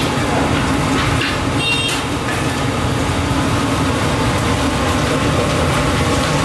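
Steady, loud rumbling noise of a commercial kitchen's gas range and ventilation under a large pot of boiling noodle water. A brief high tone sounds about two seconds in.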